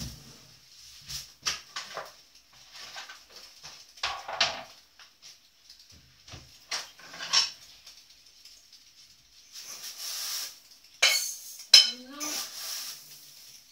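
Kitchen clatter: dishes and utensils handled and set down, with scattered knocks and clicks. Near the end come two sharp, ringing clinks, the loudest sounds here.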